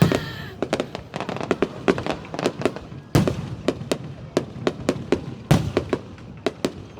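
New Year fireworks bursting: a fast, irregular string of bangs and pops, with louder booms about three seconds in and again about five and a half seconds in.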